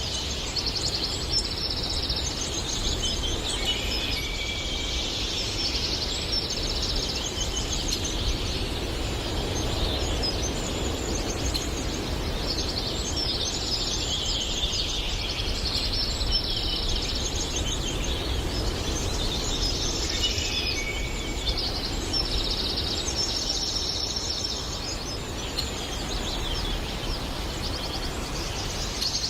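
Several songbirds singing in overlapping phrases, high and chirping, over a steady low background rumble of forest ambience.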